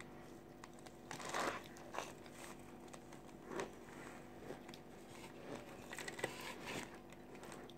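Faint, irregular crunching and chewing of a mouthful of baked Argo laundry starch, crisp little crunches every half-second or so.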